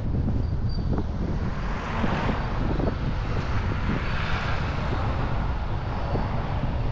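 A Toyota RAV4 driving slowly on a town street, with a steady low rumble of engine and road noise. A passing motor scooter swells up and fades about four seconds in.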